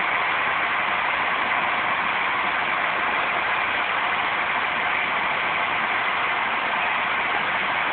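Steam locomotive No. 186, an 1879-built GS&WR J15 0-6-0, standing at the platform with a steady hiss of escaping steam.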